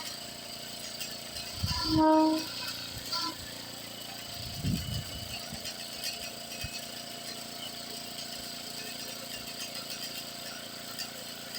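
Train air horn giving one short blast about two seconds in, then a fainter brief toot about a second later; the horn is not getting the best airflow.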